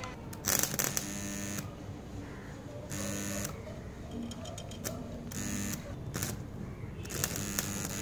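AC welding arc from a homemade microwave-oven-transformer stick welder, buzzing and crackling as the electrode is struck. It comes in short bursts several times, with a steady electrical hum in each, and catches for longer near the end.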